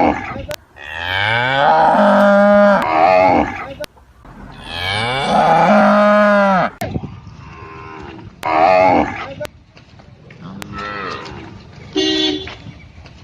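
Cattle mooing: two long, loud moos that rise in pitch as they begin, then three shorter, quieter moos.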